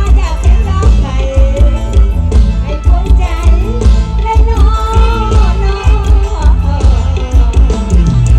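Live mor lam music played loud through a PA, with a heavy, steady bass beat and a wavering sung melody over it.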